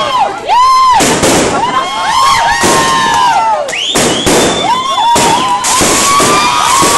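Fireworks going off: many overlapping whistles that rise and fall in pitch, over a string of sudden bangs from bursting shells.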